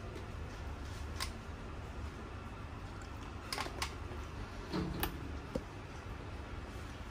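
Hard plastic clicks and taps from the housing and water tank of a Tefal 9563 steam generator being handled and tilted: one about a second in, two close together at about three and a half seconds, and the loudest about five seconds in, over a steady low hum.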